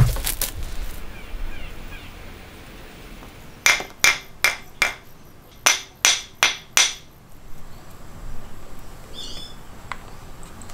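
A steel open-end spanner knocking on cured epoxy putty: two quick runs of four sharp, ringing taps, showing how hard the putty has set.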